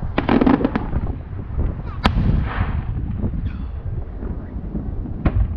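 Aerial fireworks bursting at a distance: a quick run of crackling reports near the start, one sharp bang about two seconds in and another near the end, over a steady low rumble.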